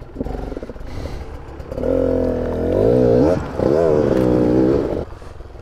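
Dirt bike engine running at low revs, then revved hard from about two seconds in, in two pushes with a short dip between, its pitch rising and wavering with the throttle before dropping back about five seconds in.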